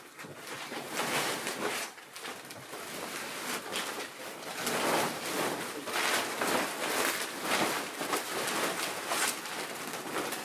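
Rustling and crinkling of a large woven plastic bulk bag being dragged and opened by hand, in irregular scratchy swells.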